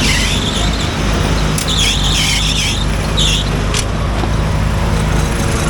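Riding lawn mower engines running steadily under racing, with high wavering squeals coming and going three times.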